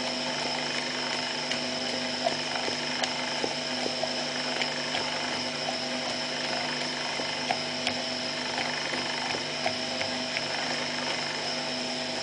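Small screw oil press driven by an electric motor through a gear reducer, running steadily while pressing walnut kernels: a constant motor hum and whine, with scattered small clicks.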